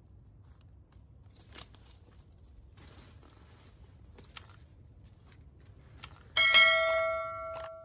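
A few faint snaps and rustles of corn plants being handled, then about six seconds in a single loud bell-like ring that fades away over about a second.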